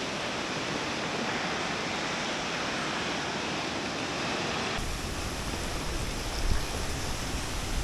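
Steady rushing roar of Gitgit waterfall's falling water. About five seconds in, the sound changes abruptly and a deep rumble joins in underneath.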